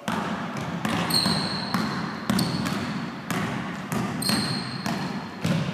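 A basketball dribbled hard on a gym floor in a change-of-direction and change-of-hand crossover drill, with about eight irregular bounces. Sneakers squeak in two long stretches as the player plants and shifts his weight from side to side.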